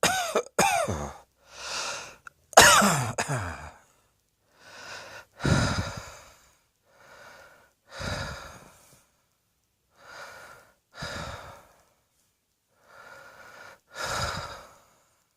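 A person coughing hard, two loud rasping fits in the first four seconds, then quieter breaths in and out, roughly one every second or so.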